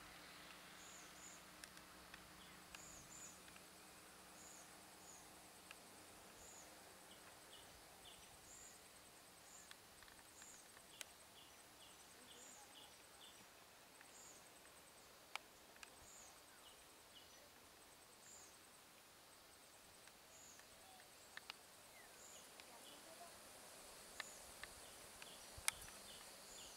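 Faint outdoor ambience: a short high chirp repeats about once a second over a soft hiss, with a few sharp clicks.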